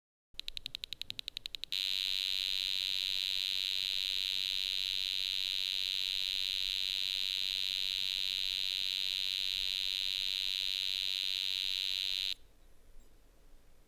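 A 386 computer buzzing at a high, steady pitch while its BIOS counts up the memory on power-on: a quick train of pulses for about a second and a half, then one continuous shrill tone that cuts off suddenly near the end.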